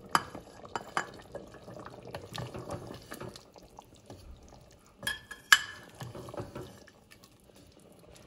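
Wooden spoon stirring thick chicken curry in a pressure cooker pot, with soft wet stirring sounds and a few sharp knocks of the spoon against the cookware. The loudest knock comes about five and a half seconds in.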